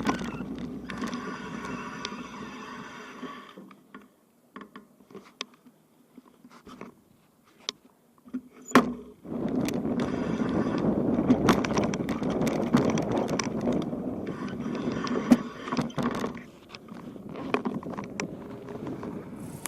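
Bicycle ride over a rough unpaved road: uneven tyre rumble with frequent rattles and knocks. It drops away to near quiet with scattered clicks for several seconds in the middle, then returns.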